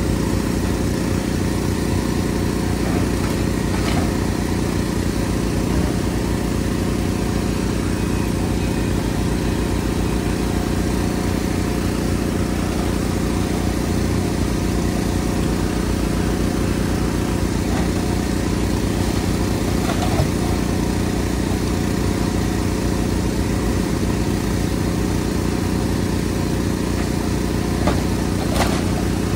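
Hydraulic excavator's diesel engine running steadily during demolition, with a few short sharp knocks and cracks as the bucket works at the house's wooden structure.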